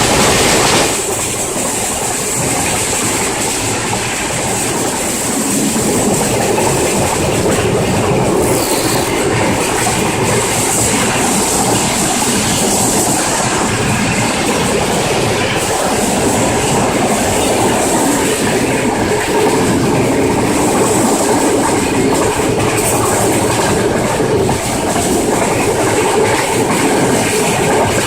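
Train hauled by a Pakistan Railways GEU-40 diesel-electric locomotive running steadily, its wheels clattering over the rails with a continuous high-pitched hiss or squeal.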